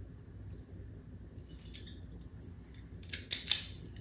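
Low room hum, then about three seconds in a quick run of sharp metallic clicks from a small hand tool being handled.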